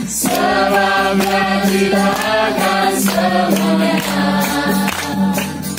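A crowd singing an Indonesian worship song together with a live band, with a bass guitar and a steady beat under the voices.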